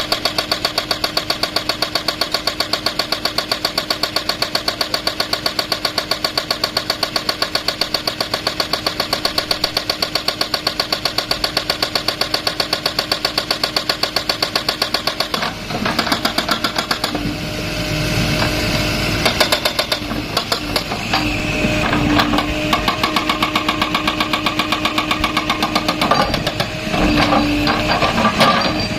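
JCB excavator's diesel engine running with a steady rapid beat. About halfway through the sound turns uneven, rising and falling as the machine works.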